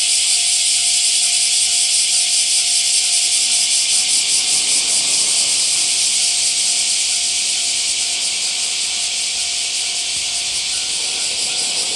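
Loud, steady high-pitched hiss with a faint steady tone beneath it. From about a third of the way in, a 221 series electric train's approach shows as a faint low rumble growing under the hiss.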